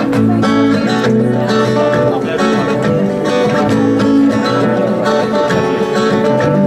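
Live acoustic music played on a plucked string instrument, like a guitar, with notes ringing on and overlapping.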